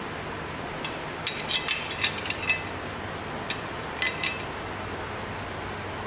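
Light metal clinks and clicks of a hand brake-line flaring tool being handled and set on a brake line: a quick run of clinks about a second in, then a few scattered ones, over a steady background hiss.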